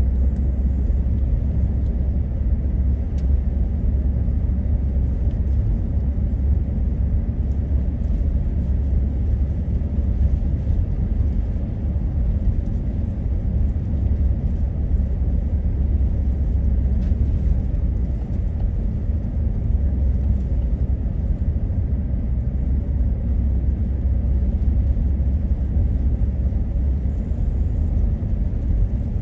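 Truck driving through a snowstorm, heard from inside the cab: a steady low rumble of engine and tyre noise.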